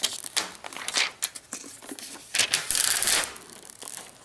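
Protective plastic film being peeled off the glossy plastic body of an Apple AirPort Extreme router, crackling in irregular bursts. The longest, loudest stretch comes about two and a half seconds in.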